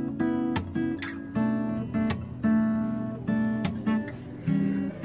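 Acoustic guitar strummed in chords, about two strums a second, each chord ringing on until the next.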